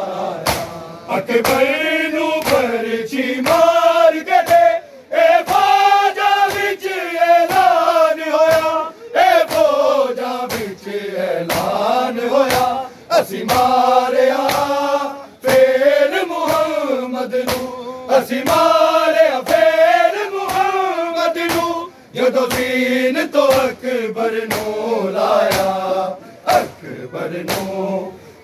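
A crowd of men chanting a Muharram noha together, loud and sung, with a steady beat of sharp hand slaps from matam chest-beating.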